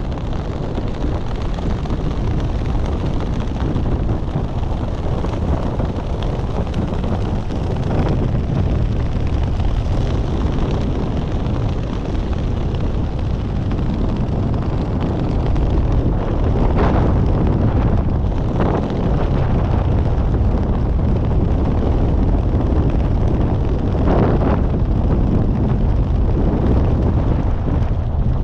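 Wind rushing over a skydiver's camera microphone: a loud, steady roar that is heaviest in the low end, with a few brief louder gusts.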